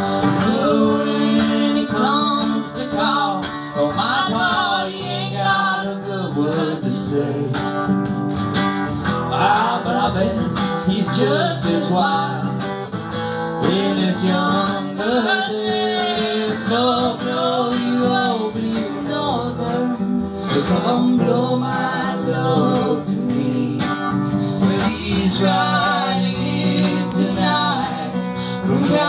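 Live country-folk duo: a strummed acoustic guitar and a hand-played djembe, with a man and a woman singing together.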